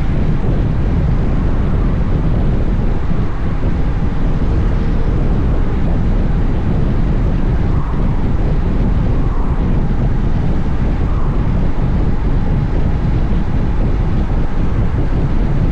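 Heavy wind noise on the camera microphone of a motorcycle riding at speed in strong wind, a steady low rush with the bike's road and engine noise blended in.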